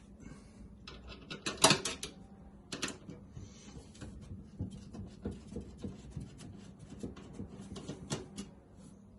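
Irregular light clicks, taps and scrapes of small hard parts being handled during a desktop computer's disassembly, with a few sharper knocks about one and a half seconds in, near three seconds and around eight seconds in.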